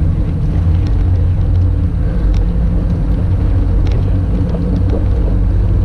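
Steady low rumble of wind buffeting the microphone while cycling, mixed with bicycle tyre noise on the pavement, with a few faint ticks.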